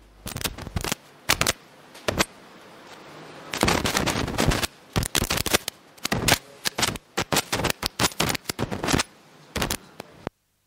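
Marker writing on a whiteboard: a quick, irregular series of scratchy strokes and taps, with short gaps between letters and words.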